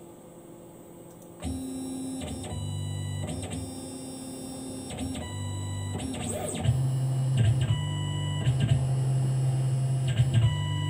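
Tormach CNC mill's axis motors driving the table through an automatic find-center probing cycle, the touch probe working inside a part's bore. A series of steady motor whines starts about a second and a half in, changing pitch abruptly with each move and breaking off briefly between moves.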